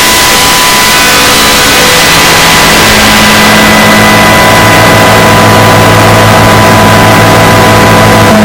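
Loud, distorted wash of noise near full volume, with a steady high beep running through it and a low hum coming in about two and a half seconds in.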